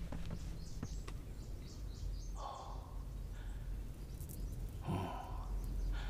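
Quiet ambience with a low steady rumble and faint high bird chirps, and two short breathy sounds, about two and a half seconds in and again near the end.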